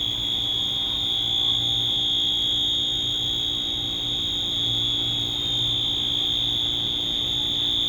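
A school fire alarm sounding one continuous, steady high-pitched tone, unbroken throughout.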